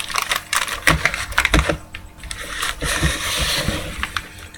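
Sealed foil trading card packs being handled on a table: scattered clicks and taps, then a short crinkling rustle about three seconds in.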